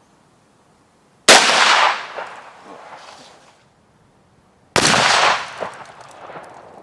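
Two shotgun blasts, about three and a half seconds apart, each a sudden loud bang that dies away over about a second.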